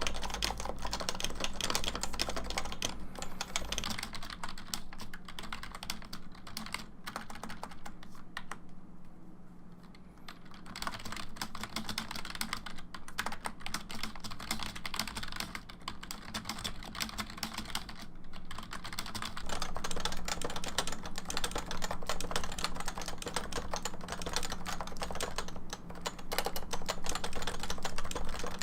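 Fast, continuous typing on a computer keyboard: a dense stream of key clicks and key-bottoming taps, thinning out briefly about a third of the way in and getting louder for the last third.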